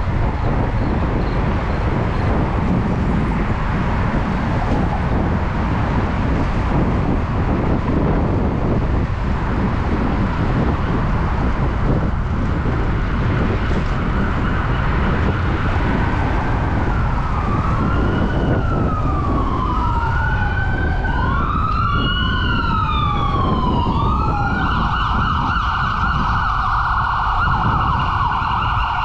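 Emergency vehicle siren heard over steady wind and road noise from riding. About halfway through it comes in with a slow rising and falling wail, sweeps overlapping, and near the end it switches to a much faster rise and fall.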